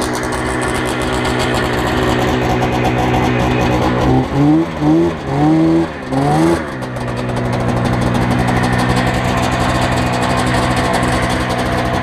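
Arctic Cat snowmobile engine running steadily, then revved four times in quick succession about four seconds in, each rev rising in pitch, as the sled pushes off through deep powder snow. It then settles back to a steady run.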